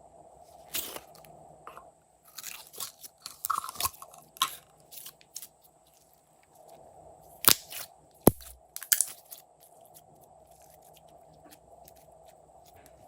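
Slime being worked by hand, giving irregular crackling pops and sharp clicks in clusters with short quiet gaps between them.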